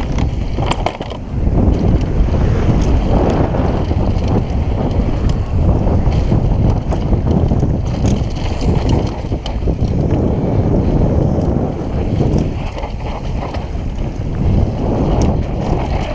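Wind rushing over a mountain bike camera's microphone on a fast downhill run, a loud low rumble that swells and dips with speed. Short clicks and clatters from the bike running over the rough dry dirt trail come through it.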